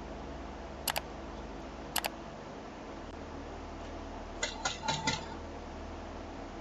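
A locked door's handle being tried: two sharp clicks, then a short burst of rattling clicks about four and a half seconds in. A doorbell camera microphone's steady hiss and hum runs underneath.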